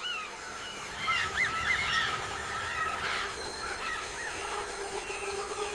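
Many birds calling over one another, with short chirps and whistled notes that are busiest between about one and three seconds in, over a steady low hum.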